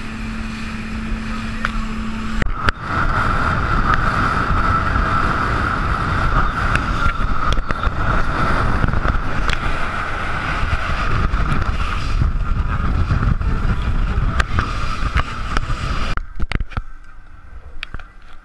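Motorboat running fast over open sea: engine noise mixed with wind and rushing water, loud and steady. It starts with a steady low hum that changes suddenly a few seconds in to the running noise, which drops away near the end to a quieter background with a few knocks.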